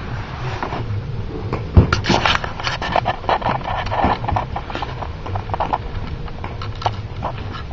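Hollow plastic play balls clattering and rustling against each other and the inflatable pit's vinyl walls as they are scooped and tossed, with a sharp knock about two seconds in.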